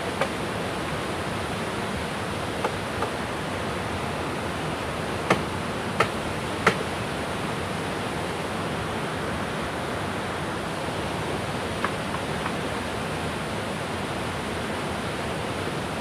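Steady rush of a river running over rocks, with three sharp knocks about two-thirds of a second apart near the middle, a blade chopping wood, and a few fainter clicks elsewhere.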